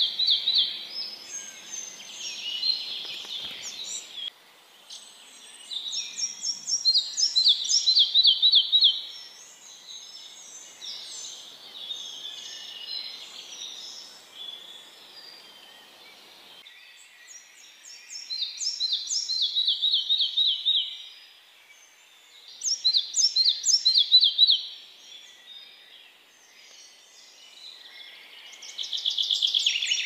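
Red-breasted flycatcher singing: phrases of quick, high repeated notes, each series stepping down in pitch, with pauses of a few seconds between phrases.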